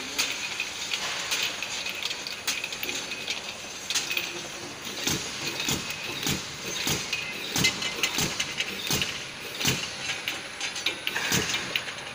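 Automatic wrap-around bottle-labeling machine with a rotary turntable running: a steady mechanical whir broken by irregular sharp clicks and clacks from its moving parts and the small glass bottles.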